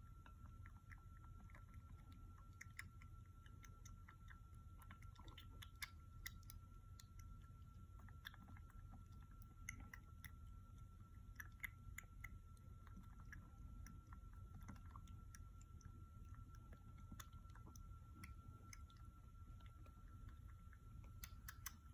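Kitten suckling milk from a bottle nipple: faint, irregular wet sucking and smacking clicks.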